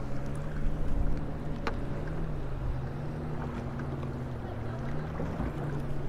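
Steady hum of a boat's electric trolling motor, its pitch rising and falling slightly as it holds position, over wind and water noise. A single sharp click sounds about two seconds in.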